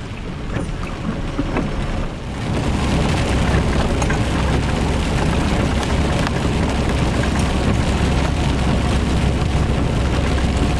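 Inside a truck cab driving in the rain: a steady low engine rumble with the hiss of tyres on the wet road and rain, stepping up louder about two seconds in.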